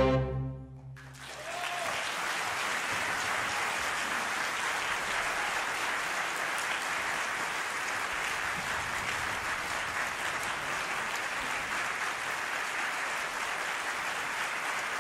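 An orchestra's final chord fades away in the hall's reverberation, and about a second in an audience breaks into steady applause that continues evenly.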